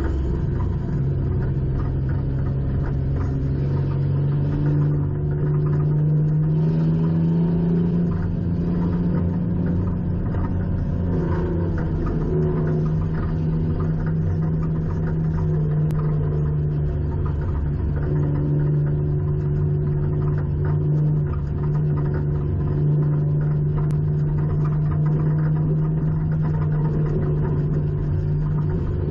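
Race car engine heard from inside its stripped-out cabin, running steadily at moderate revs, its pitch rising and easing gently a few times, over a constant road and tyre rumble.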